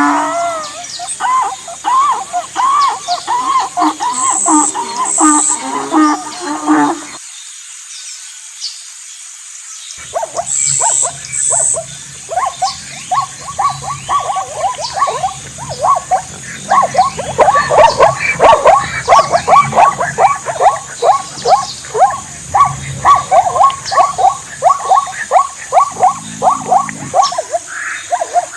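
An animal calling in fast series of short, high-pitched yelps, several a second, breaking off for about three seconds near the start and then running on more densely.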